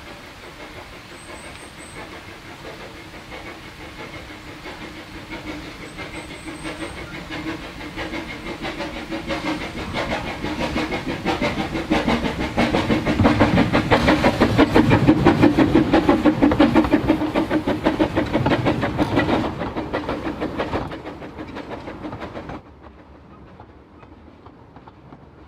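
Steam locomotive chuffing at a fast, even beat. It grows steadily louder to a peak a little past the middle, then fades and drops away sharply near the end.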